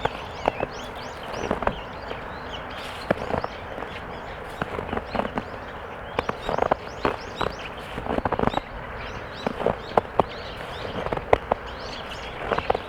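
Footsteps crunching and squeaking in snow (the Korean 뽀드득 sound of packed snow underfoot), a series of steps at an uneven walking pace.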